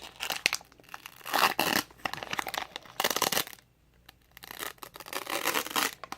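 Foil wrapper of a Pokémon card booster pack being crinkled and tugged at while being torn open, in several crackly bursts with a short quiet pause in the middle.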